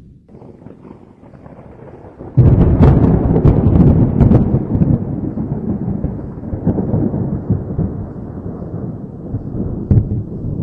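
Thunder: after a low rumble, a sudden loud crack of thunder about two seconds in crackles for a couple of seconds, then rolls on as a long low rumble that slowly fades. A brief, sharper crack comes near the end.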